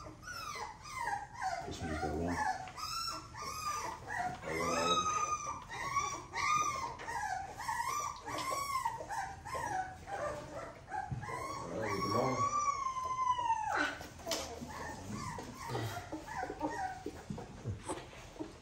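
Four-week-old XL pit bull puppy whining and crying while held for an oral dewormer: a long run of high, arching cries one after another, ending about three-quarters through with one long falling cry, then fainter whimpers.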